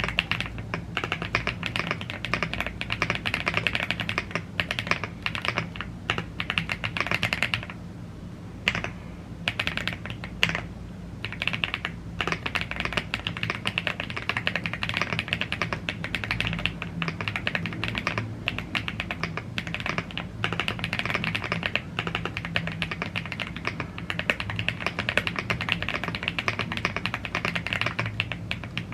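Fast continuous typing on a YUNZII AL75 gasket-mounted aluminium mechanical keyboard with blue grey tactile switches and double-shot PBT Cherry-profile keycaps, with short pauses about 8 seconds in and again about 10 to 11 seconds in.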